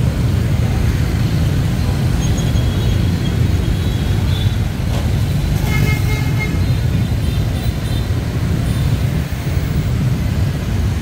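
Steady road traffic rumbling past on a city street, with a vehicle horn sounding briefly about six seconds in.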